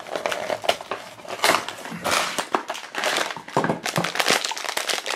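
Cardboard blind box being pulled open, then a foil blind bag crinkling as it is handled in the hands.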